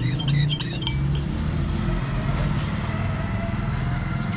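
Street traffic with an engine running steadily; a repeating electronic chime-like melody cuts off about a second in.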